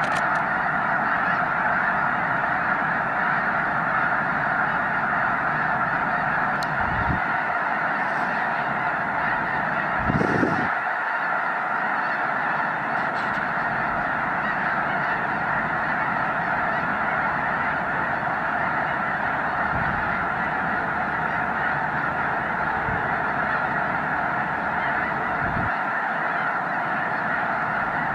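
A huge flock of snow geese calling in flight: a dense, steady chorus of countless overlapping honks. A brief low thump sounds about ten seconds in.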